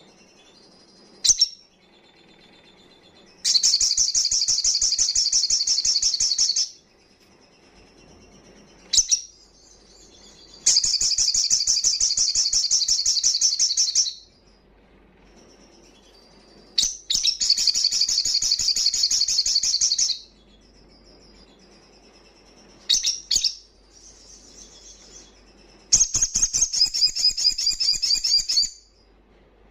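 Male olive-backed sunbird singing hard in the wild-bird 'ngalas' style. There are four loud bursts of rapid, high, buzzy trilling, each about three seconds long, with short sharp chirps between them.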